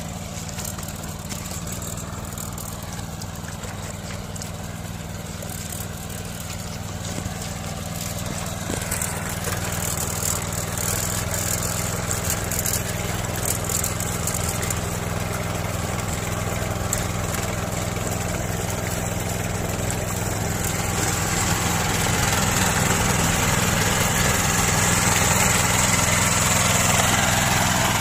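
Yanmar AP4 walk-behind rice transplanter's engine running steadily while the machine plants rice seedlings in a flooded paddy. It grows louder about a third of the way in and again near the end.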